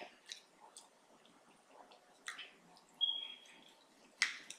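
Knife and fork cutting steak on a plate: scattered faint clicks and scrapes, a short high squeak about three seconds in, and a louder click near the end.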